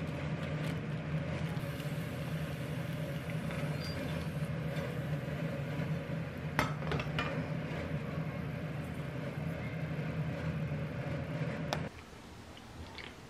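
Spatula and dishes clinking a few times on a ceramic plate over a steady low kitchen hum; the hum drops away near the end.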